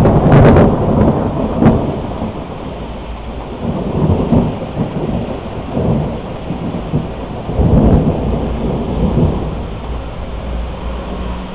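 Thunder: a loud crackling clap at the start that rolls on in rumbles, swelling again about four and eight seconds in and then fading, with rain falling.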